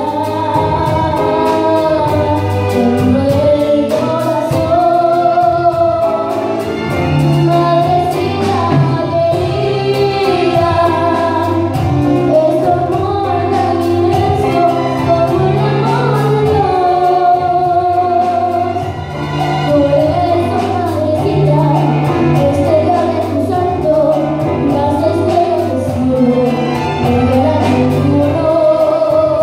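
A young girl singing a slow melody into a microphone, accompanied by a string ensemble of violins, violas and cello that keeps a steady low line under her voice.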